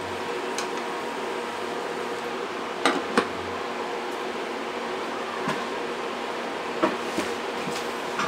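Steady hum of an induction cooktop running under a pot of water heating with pork hocks. About three seconds in come two quick clinks as a glass lid is set on the steel pot, and a few faint ticks follow later.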